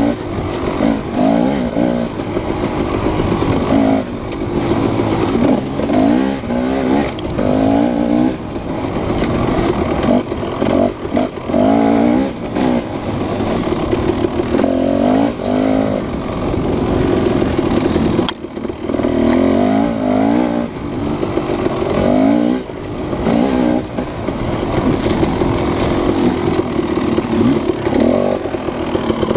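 Husqvarna 300 two-stroke dirt bike engine being ridden along a trail, revving up and down as the throttle is opened and closed every second or two, with a brief back-off about two-thirds of the way through.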